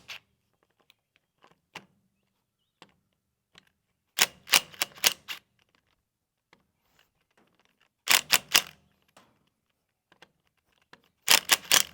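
Impact wrench with a hex driver bit hammering at bolts on an excavator boom cylinder's hard-line block: three short bursts of rapid hammering, each about a second long, about four, eight and eleven seconds in, as the bolts are broken loose.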